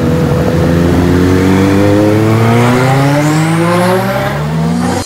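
Car engine accelerating hard through a single long pull, its pitch rising steadily for about five seconds before cutting off suddenly at the end.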